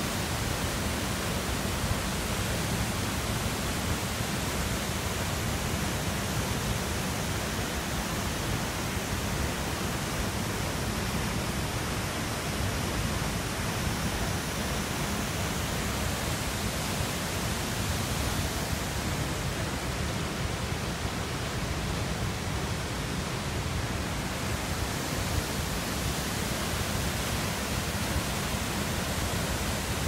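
Large waterfall plunging into a rock pool: a steady, even rush of falling water.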